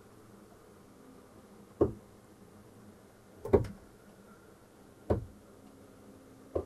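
Electric rear bed slide-out of a Westfalia James Cook campervan extending. Its mechanism knocks four times at even spacing, about one and a half seconds apart, and a faint steady hum sets in near the end.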